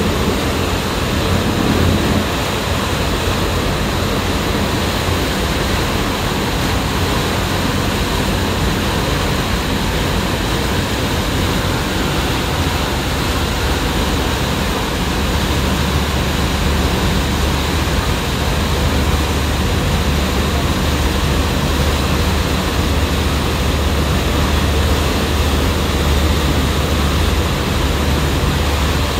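Ferry under way: a steady low engine drone under the rush of its churning wake and wind, heard from the open stern deck. The low drone grows a little stronger about halfway through.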